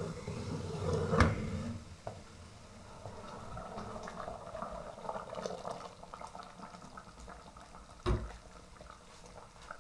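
Thick, sugary green tomato jam boiling in an enamel pot, bubbling and popping continuously. Two sharp knocks stand out, one about a second in and one near the end.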